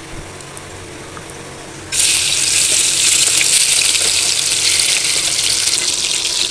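Chicken frying in hot oil: a loud, steady sizzling hiss that starts suddenly about two seconds in, after a quieter stretch, and cuts off abruptly.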